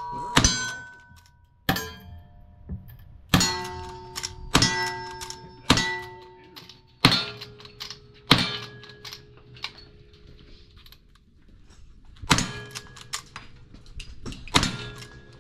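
Lever-action rifle firing a string of shots at steel targets, about nine in all, each crack followed by the ring of a struck steel plate. A pause of about four seconds comes past the middle before the last two shots.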